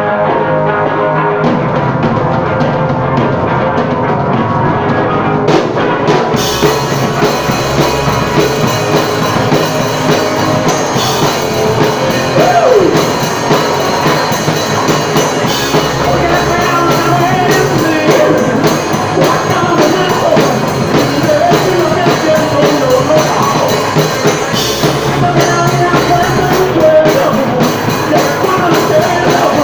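Rock band playing a song: electric guitar chords alone at first, then drums with cymbals and the rest of the band come in about six seconds in and play on steadily.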